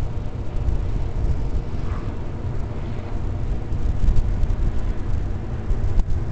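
Wind buffeting the camera's microphone: a loud, uneven low rumble.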